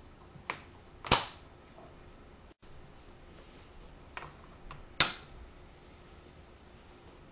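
Magnetic hardwood building blocks clacking together as they snap into place: two sharp clacks, about a second in and about five seconds in, with lighter taps around them.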